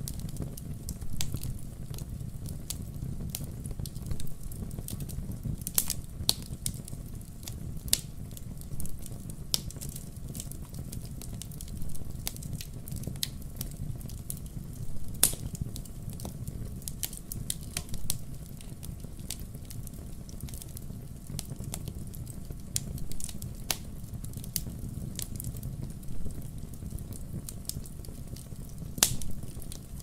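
Wood fire crackling in a fireplace: irregular sharp pops and snaps over the steady low noise of the flames. The loudest pops come about halfway through and near the end.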